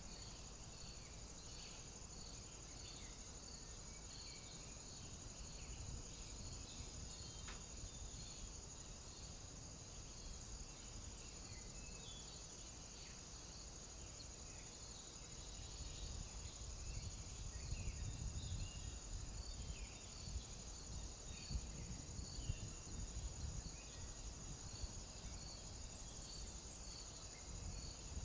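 Insects trilling steadily, with a second, pulsed chirp repeating regularly just beneath the trill. A low wind rumble on the microphone grows stronger about halfway through.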